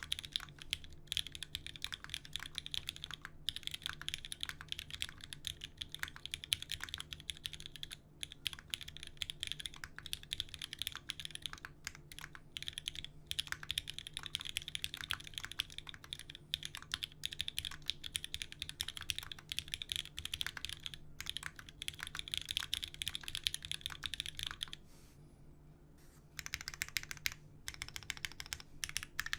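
Fast, continuous typing on a custom 60% mechanical keyboard with lubed Cherry MX Black linear switches and GMK keycaps, in an aluminium case with a polypropylene plate, each keystroke a quick clack. The typing breaks off for about a second near the end, then resumes.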